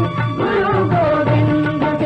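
Punjabi folk song music: a melody of long held notes with a sliding ornament about half a second in, over a repeating low accompaniment.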